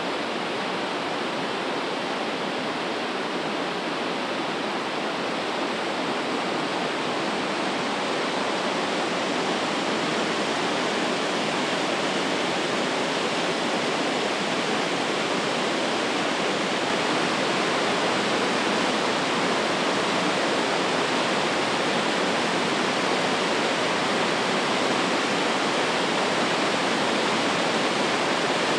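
Tiered waterfall pouring: a steady, dense rush of falling water, even throughout.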